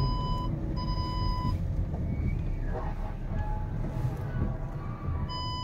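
A high, steady warning beep inside a Volkswagen Tiguan's cabin, over the car's low running noise. It sounds twice at the start, a longer tone then a shorter one, and returns as a continuous tone near the end.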